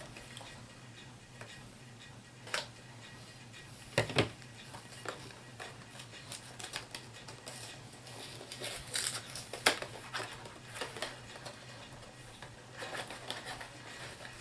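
Hands opening a HeroClix booster pack and unpacking its plastic miniatures: scattered packaging rustles and light clicks and taps, with sharper clicks about two and a half, four and nine and a half seconds in.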